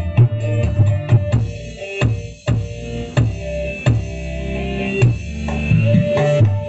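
A song played loudly through speakers driven by a home-built 30-amp subwoofer power amplifier, heavy in bass, with regular drum hits about every two-thirds of a second.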